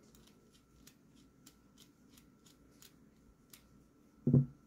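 Light, irregular ticking as a small screwdriver backs a screw out of the handle of a Spyderco Shaman folding knife, about three or four ticks a second, then a single dull thump about four seconds in.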